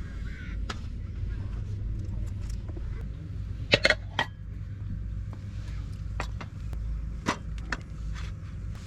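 Scattered sharp clicks and knocks over a steady low rumble, the loudest a quick cluster of clicks a little before the middle.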